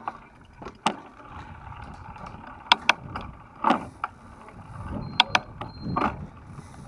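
Mountain bike rolling over a rough, cracked concrete lane, with a steady rumble of tyres and wind and a run of sharp knocks and rattles as the bike jolts over bumps.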